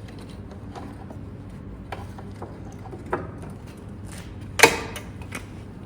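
Scattered workshop handling noises over a steady low hum: a few short knocks and clicks, the loudest about two-thirds of the way through.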